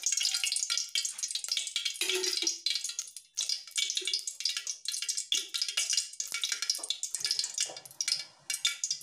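Cooking oil poured into an aluminium pot and crackling and spitting as it heats for a tempering: a dense, irregular patter of small pops.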